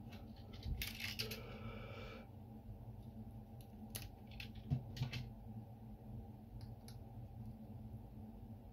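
Light clicks and scrapes of a thin metal blade prying the circuit board out of a BMW remote key's plastic shell, with a scratchy patch in the first two seconds and the sharpest click about five seconds in, over a steady low hum.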